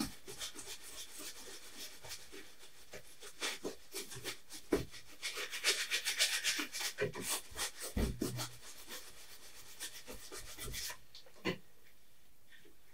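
Wide bristle brush scrubbing oil paint onto a canvas in quick, repeated rubbing strokes; the strokes stop about eleven seconds in.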